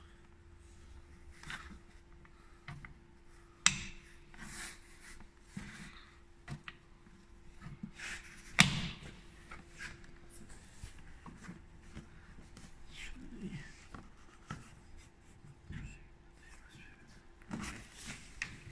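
Scattered clicks and knocks of a plastic windscreen cowl trim panel being handled and pressed into place by hand, with two sharper knocks about four and nine seconds in. A faint steady hum runs under it and stops about halfway.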